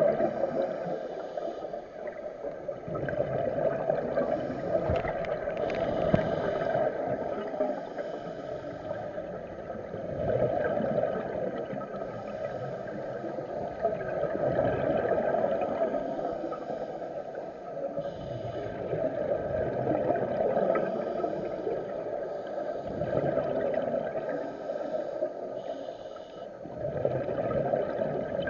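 Muffled underwater noise heard through a dive camera's housing: a steady rushing that swells and eases every four to five seconds, in the rhythm of a scuba diver's regulator breathing and exhaled bubbles.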